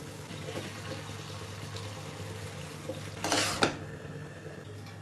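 A utensil in a cooking pot: a short scrape about three seconds in that ends in a sharp tap, over a steady low hum.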